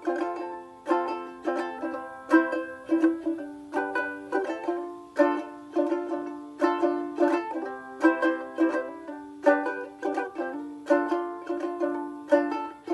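Ukulele strummed in a quick steady rhythm, playing the instrumental break of the song with no singing.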